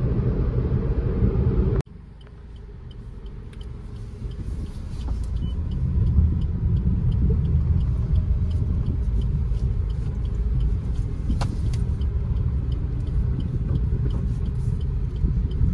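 Car cabin noise while driving: a steady low rumble of engine and tyres on the road. It cuts off abruptly about two seconds in, then builds back up over the next few seconds and runs steadily.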